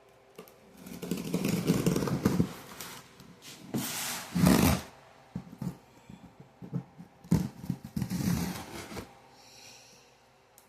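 A cardboard box being opened and its packaging handled: bouts of scraping and rustling, with a run of short knocks and clicks in the middle.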